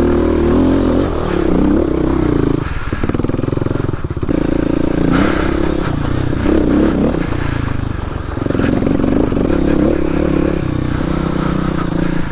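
Kawasaki KLX250S dual-sport motorcycle's single-cylinder four-stroke engine running under way, its revs rising and falling and easing off briefly a few times.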